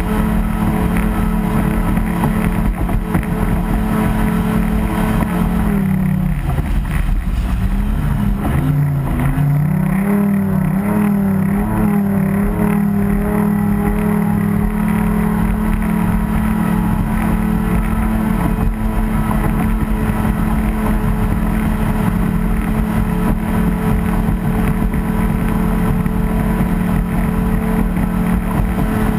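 Racing boat engine running at a steady high pitch. About six seconds in it drops in pitch and wavers for a few seconds as it eases off, then climbs back to a steady run, and it falls off again at the very end.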